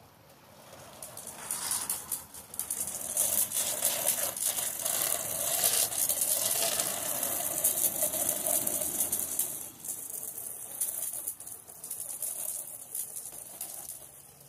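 Water sprayed from a pressure-washer wand onto vinyl house siding, pushed by garden-hose pressure alone with the pressure washer's engine off. The hissing spray builds about a second in and drops back after about ten seconds.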